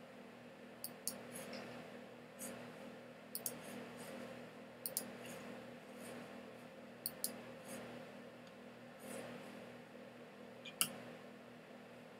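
Computer mouse button clicking, sharp clicks often in close pairs, about eight times with the loudest near the end, over a faint steady room hum.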